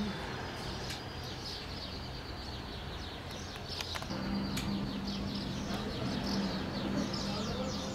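Small birds chirping: dense runs of short, high, falling calls throughout. A steady low hum comes in about halfway through.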